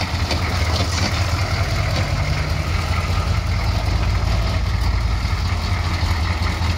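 Chevrolet K5 Blazer's 6.2-litre diesel V8 running steadily at low revs as the truck crawls over rocks.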